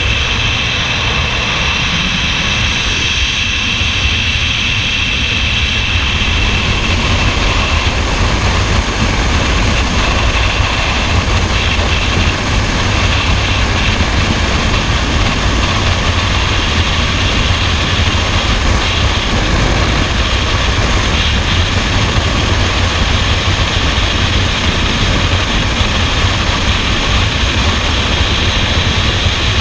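Freefall wind rushing and buffeting over a helmet-mounted camera's microphone, loud and steady with no let-up.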